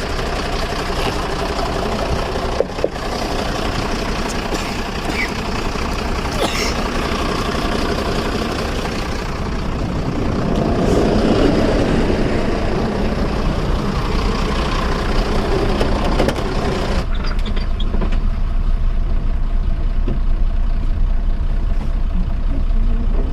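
A diesel truck engine running at idle, a steady low drone under outdoor noise, growing louder about ten seconds in.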